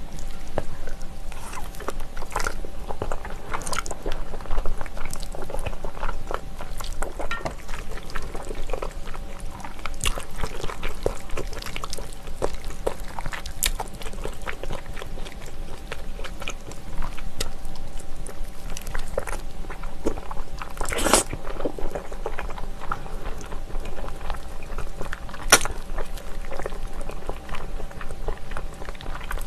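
Close-miked eating sounds: chewing and slurping of chewy flat glass noodles and braised ox knee in spicy sauce. Many small wet mouth clicks run throughout, with a louder sharp sound about 21 seconds in and again near 25 seconds.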